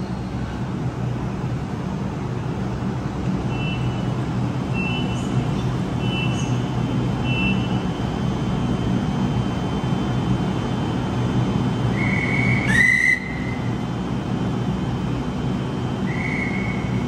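Double-deck electric train standing at an underground platform with its doors open, its equipment humming steadily. Four short high beeps come a few seconds in. A loud shrill whistle blast sounds about 13 seconds in, and a shorter one follows near the end.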